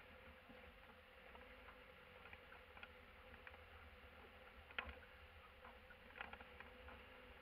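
Near silence: faint, muffled van cab noise on the move, a steady low hum with a few light clicks and rattles.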